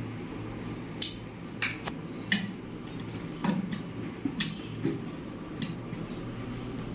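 Irregular sharp metallic clinks and knocks, about seven of them, the loudest about a second in and again past the middle, over a steady low hum.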